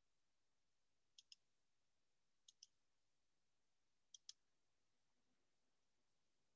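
Near silence broken by three faint double-clicks of a computer mouse, each two quick clicks, the pairs a second or so apart.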